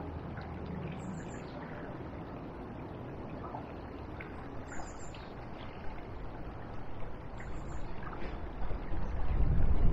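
Steady rushing of a swollen river running high after floods, with a faint high bird chirp heard three times. A low, uneven rumble builds near the end.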